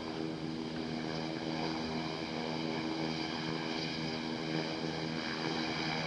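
Beechcraft King Air's twin turboprop engines running at taxi power: a steady propeller drone with a high turbine whine above it.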